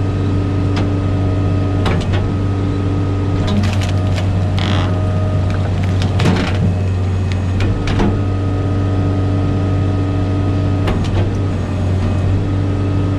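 Bobcat Toolcat's engine running at a steady speed to drive the Halverson wood processor's hydraulics, a constant low drone. Scattered sharp knocks and clunks from the processor come every second or two, with a short hiss about four to five seconds in.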